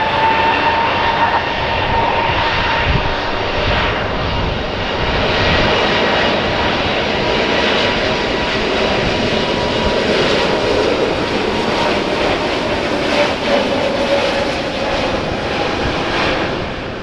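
Airbus A321neo's geared turbofan engines at takeoff thrust: a loud, steady whine over a broad rushing noise, the pitch having just levelled off after spooling up. The sound drops somewhat near the end.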